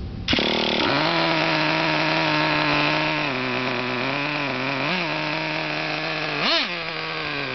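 Traxxas Jato 2.5's small two-stroke nitro glow engine coming in suddenly about a third of a second in and idling steadily. A small throttle blip comes about five seconds in, then a quick sharp rev about a second later.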